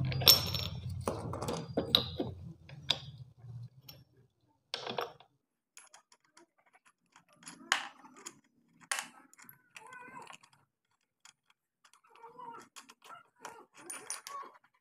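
Scattered metal clinks, scrapes and light clicks from a brass wire brush wheel being fitted and hand-tightened onto a bench grinder's spindle. A low hum fades out over the first few seconds.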